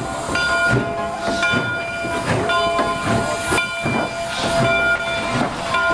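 Steam locomotive running, with a regular chuff a little faster than one a second over a steady hiss of steam. A steady high ringing tone runs underneath.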